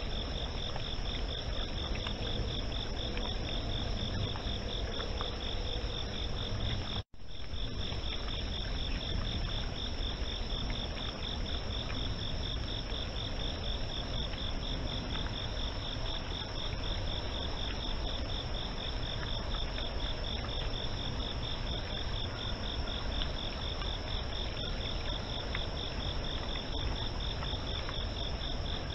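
Night insect chorus: a fast, evenly pulsing trill with a steadier higher tone above it, over a low hiss. The sound cuts out for an instant about seven seconds in, then carries on unchanged.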